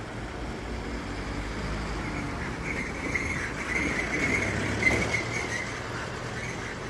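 Tokyu Meguro Line electric train passing a level crossing. The rumble builds to its loudest about five seconds in, with a high-pitched sound running through the middle.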